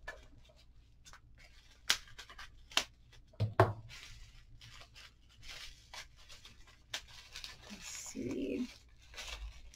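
Faint handling sounds of scissors cutting open a bubble-wrap package, with scattered sharp clicks and snips and short rustling, tearing plastic noises. A brief low pitched sound comes about eight seconds in.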